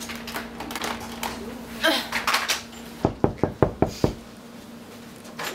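Knocking on a hotel room door: a quick run of about seven knocks, lasting about a second, starting about three seconds in.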